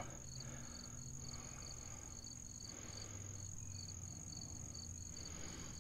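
Faint cricket chirping, a regular high chirp about three times a second, over a low steady hum.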